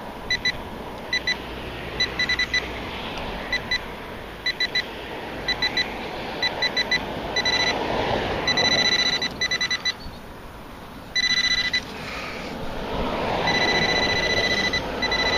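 Metal-detecting pinpointer beeping in quick clusters of short high beeps, then giving longer steady tones as it homes in on a metal target in the dug soil. A rustling, windy noise runs underneath.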